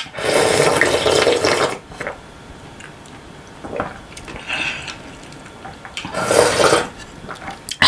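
Loud slurping of cold naengmyeon broth sipped from a wooden bowl: one long slurp of nearly two seconds, a few softer sips midway, then a second shorter slurp near the end.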